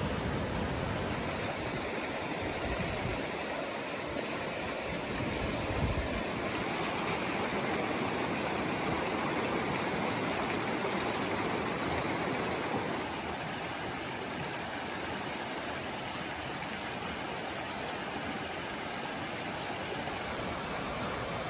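Fast river water rushing over rocks and rapids as a steady roar of water, dropping slightly in level a little past halfway. A brief low thump about six seconds in.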